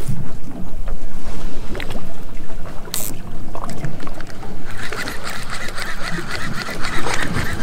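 Wind noise on the microphone of an open boat, with a sharp click about three seconds in. From about five seconds in a rapid rasping whirr joins it: a conventional fishing reel being cranked on high-speed retrieve.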